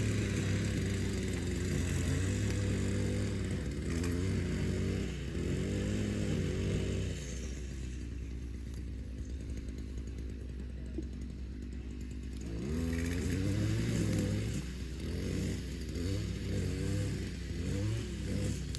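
A small petrol engine on a cutting tool, starting up suddenly and then running. Its throttle is opened and eased off again and again, so the pitch rises and falls in two spells, with a steadier stretch in the middle.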